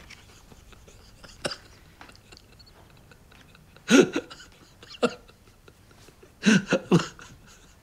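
An elderly man crying: short, broken sobs and catching breaths, the first about four seconds in and a cluster near the end.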